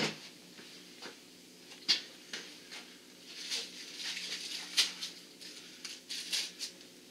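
Handling noise from a plastic storage tote: a few sharp knocks and clicks against it with light rustling, as a nut is fitted onto a plastic fitting through its wall. The loudest knocks come right at the start, about two seconds in, and near five seconds.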